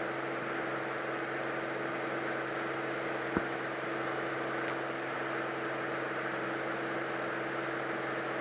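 Steady drone of a Cirrus SR22's piston engine, propeller and airflow in flight, heard inside the cockpit through the headset intercom, with a single short click about three seconds in.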